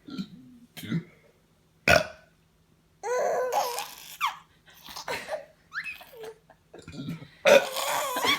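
A man burps and a baby laughs at it in repeated bursts.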